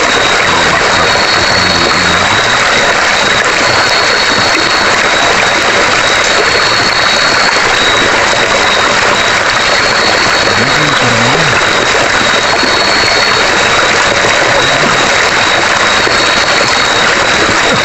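Night forest ambience: a steady, loud rushing hiss carries a continuous high insect trill. A second, slightly higher trill comes in for about a second roughly every three seconds.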